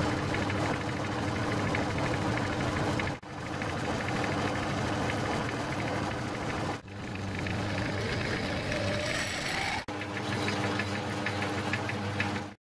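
Metal-turning lathe running with a steady motor hum while turning a spinning metal workpiece, with a fine ticking of cutting over the hum. The sound breaks off abruptly three times and resumes each time.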